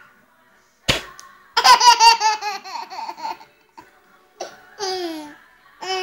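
Baby laughing: a quick run of giggling pulses, then a couple of longer laughs that fall in pitch. A short knock is heard about a second in, just before the laughter starts.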